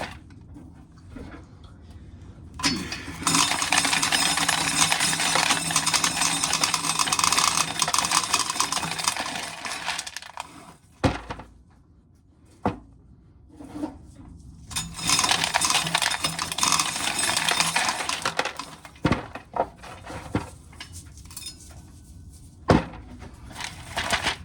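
Corn sheller stripping dried ears, the kernels pouring and rattling into a pail in a dense clinking patter. Two long spells of shelling, the first about seven seconds and the second about four, with single knocks in the pauses between as ears are handled.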